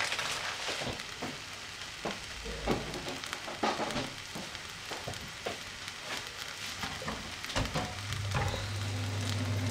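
Diced onion sizzling in oil in a frying pan, with scattered small crackles. A low steady hum comes in near the end.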